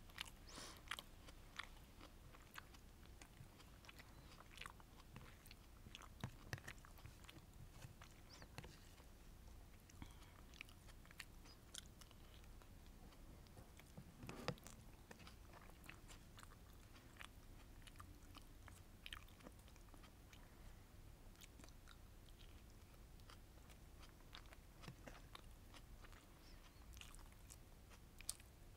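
Faint, close-miked chewing and mouth sounds of someone eating sweet and sour fish with rice: soft, irregular clicks throughout, the loudest about fourteen seconds in.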